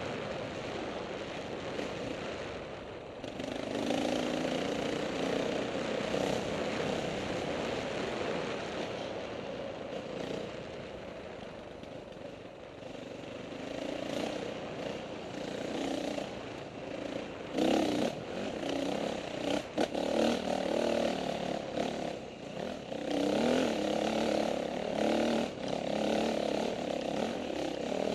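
KTM 450 XC-W's single-cylinder four-stroke engine under way on a dirt trail, its pitch rising and falling with throttle changes. A couple of sharp knocks come about two-thirds of the way in.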